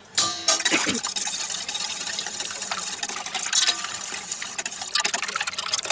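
Wire whisk beating eggs and milk in a stainless steel bowl: a rapid, steady clicking and scraping of the metal wires against the bowl.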